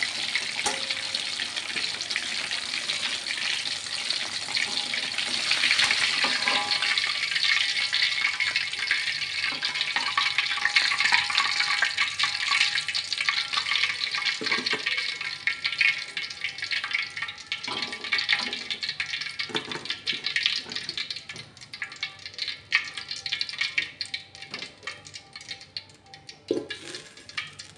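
Chicken drumsticks deep-frying in hot oil in an aluminium wok: a dense sizzle with crackling that thins to scattered pops in the second half. A few dull knocks of metal against the wok.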